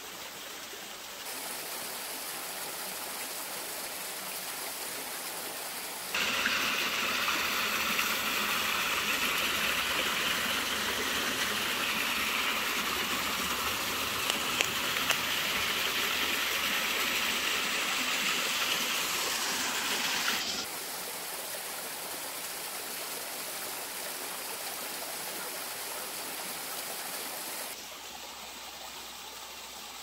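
Creek water flowing and a small waterfall splashing into a rocky pool, a steady rushing. It jumps abruptly louder and brighter about six seconds in and drops back about twenty seconds in, then drops again near the end.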